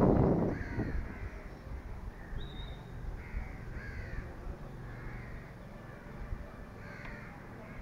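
Crows cawing several times at scattered intervals, with a brief high whistle-like call about two and a half seconds in. A loud rush of noise fades out in the first half second.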